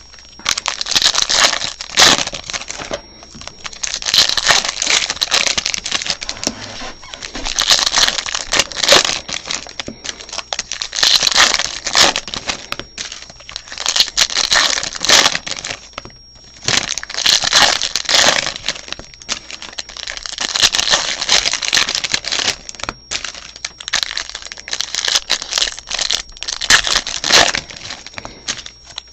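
Plastic wrapping on trading card boxes and packs crinkling and tearing as it is pulled open and handled, in repeated bursts of a second or two with short pauses between.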